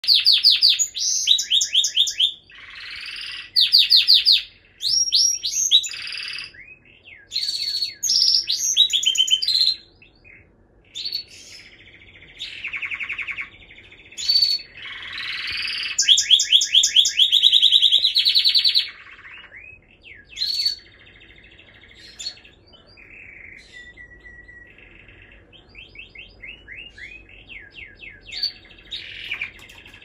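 Canary song: fast trills and rolling phrases of rapidly repeated notes with sweeping whistles between them. It is loud in the first ten seconds and again a little past halfway, with softer twittering toward the end.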